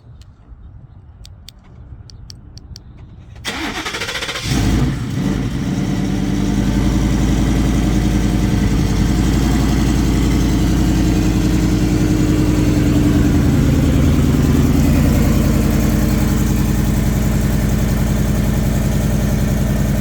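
A few faint clicks, then the single-turbo Ford F-150's engine is cranked about three and a half seconds in and catches a second later. It then settles into a steady idle. Its exhaust is leaking at the flex section of the turbo crossover pipe.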